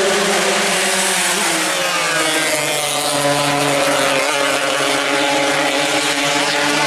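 Several Suzuki Xipo 120 two-stroke racing motorcycles running at speed together, a steady engine drone that rises and falls slightly in pitch.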